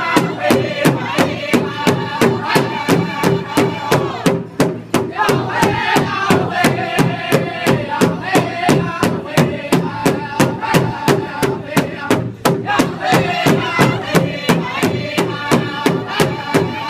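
Powwow drum group singing around a big drum: several voices chanting together over a steady drumbeat of about three strokes a second.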